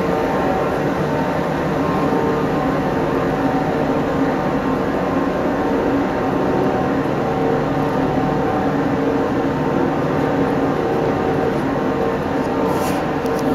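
A locomotive running while standing, a steady mechanical hum with several fixed pitches that holds even throughout. A few faint clicks come near the end.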